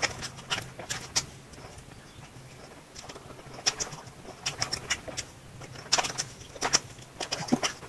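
Close-miked eating sounds: chewing and lip-smacking in clusters of sharp, wet clicks, with a lull about two to three seconds in.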